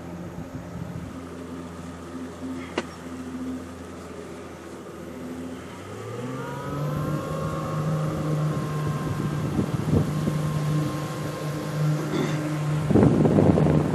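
Motorboat engine running low and steady, then throttling up about six seconds in, its pitch rising and holding higher and louder. A rushing noise joins near the end.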